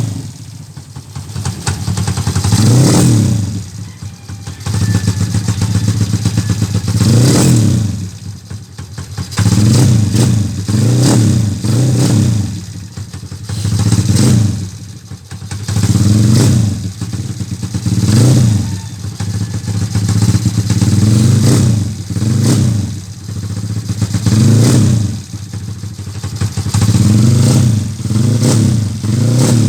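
Tuned small motorcycle engine, with a high-lift racing camshaft, ported intake and exhaust and a lightened flywheel, revved in quick repeated blips that drop back toward idle between them.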